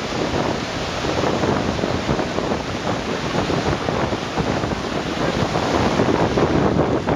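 Rough surf breaking and washing up the beach, with strong wind buffeting the microphone.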